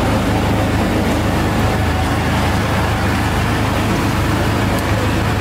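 A steady low engine hum under a constant wash of noise.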